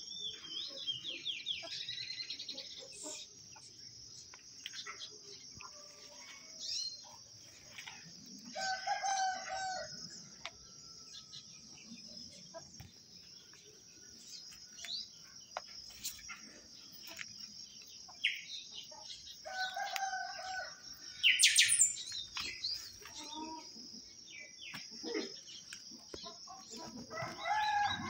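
Rooster crowing three times, with other birds chirping and calling in between, the loudest a high rising call about three-quarters of the way through. A steady high-pitched hum runs underneath.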